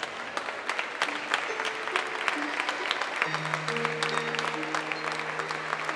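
Audience applauding with many quick claps while music plays: a few held notes, joined by a long low note a little after three seconds in.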